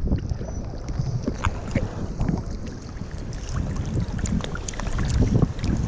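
Water lapping and splashing around a camera held at the waterline, with many small drips and splashes, and wind buffeting the microphone as a low rumble.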